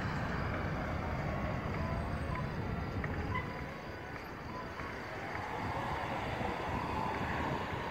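Steady urban background rumble, a dense low hum of distant city and waterfront activity.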